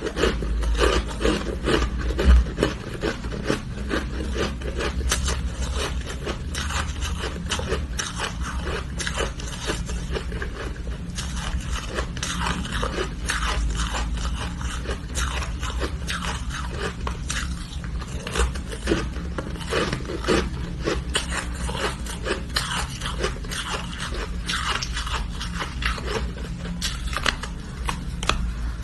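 Frosty ice being broken off in small pieces and bitten and chewed: a dense, continuous run of quick crunches and crackles.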